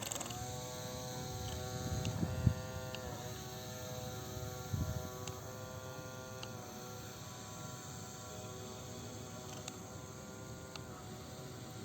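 Small electric motors driving the air boat's propellers, a steady whirring hum whose pitch dips and comes back up several times as the throttle changes. There are a couple of low thumps in the first half.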